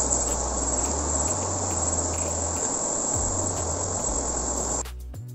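A steady, shrill chorus of insects over the rushing of a fast river current. It cuts off abruptly near the end and gives way to music.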